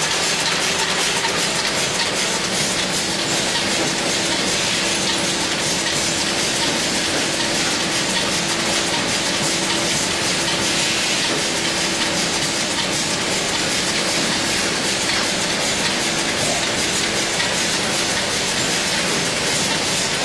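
Automatic cartoning machine with a bottle turntable running continuously: a steady, dense mechanical clatter of rapid clicks, with a faint steady hum over most of it.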